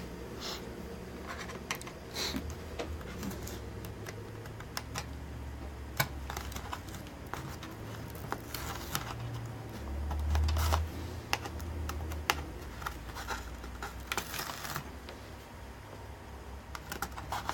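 Scattered light clicks and scrapes of small plastic parts as cable connectors are unplugged and handled inside an opened laptop.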